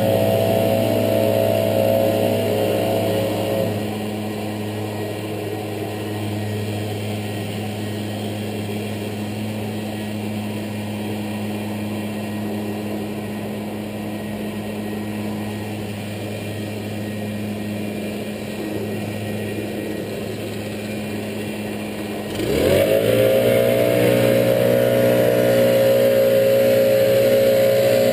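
Backpack leaf blower engine running at high throttle, dropping back to idle about four seconds in and idling steadily, then revving up quickly near the end and holding at full throttle.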